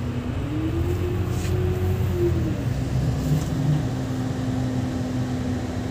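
Diesel double-decker bus running along a road, heard from inside the cabin: a steady low rumble with a whine that rises in pitch about half a second in and drops back a little after two seconds.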